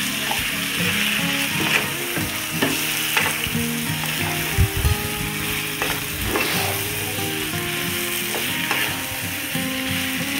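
Raw chicken pieces sizzling in hot oil and onion-tomato masala in a nonstick kadhai, stirred with a wooden spatula, with a steady hiss and occasional sharp scrapes and knocks of the spatula against the pan.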